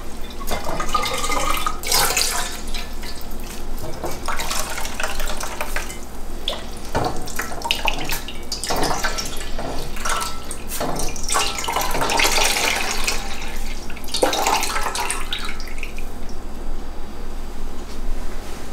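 Dye liquid splashing and trickling into a bowl as a hank of wet, freshly dyed wool fibre is wrung and squeezed by hand, in a run of separate gushes that die away near the end.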